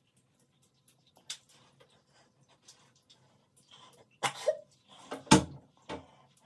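A few knocks and a thump in a small room: scattered faint clicks and rustles, then three louder knocks about four, five and six seconds in, the middle one the loudest and deepest, over a faint low hum.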